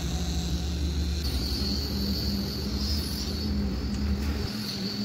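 Concrete boom pump running steadily while wet concrete is pumped out through its hose onto a slab: a low engine drone with a high whine above it. The low drone drops away near the end.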